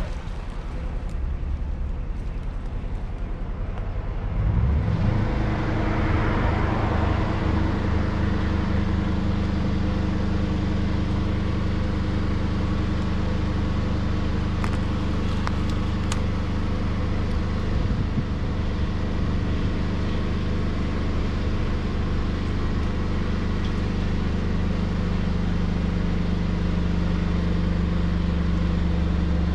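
Drain jetting machine's engine running, revving up about four and a half seconds in and then running steadily at the higher speed for jetting.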